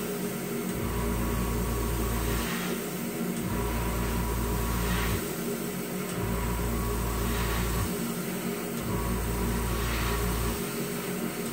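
Airbrush compressor and spray-booth exhaust fan running steadily, with a deep hum that drops out for about a second every two to three seconds and short, faint hisses of the airbrush spraying clear coat at about the same rhythm.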